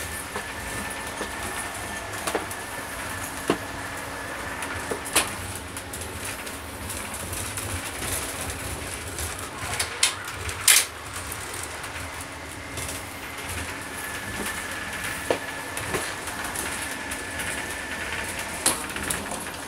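Moving passenger train heard from inside the carriage: a steady rumble with a thin high whine over it, and scattered sharp knocks and clanks.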